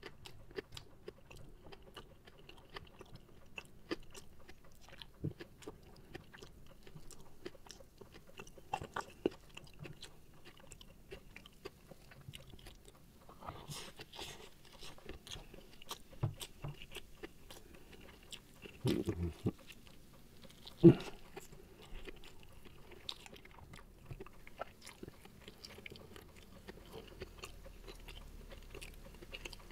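Close-miked mouth sounds of a person eating a rice meal by hand: wet chewing and small crunching clicks that go on throughout. A louder cluster of chewing comes a little past the middle, followed by a single sharp knock, the loudest sound.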